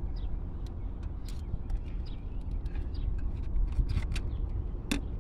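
Small scattered clicks of a screwdriver prying at the ignition control module's wiring plug, with one sharper click near the end, over a steady low outdoor rumble.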